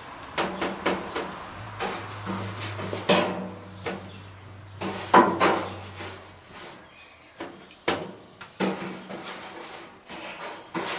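A paintbrush scrubbing grill cleaner onto the greasy inside of a stainless-steel gas grill: irregular rubbing and scraping brush strokes against the metal.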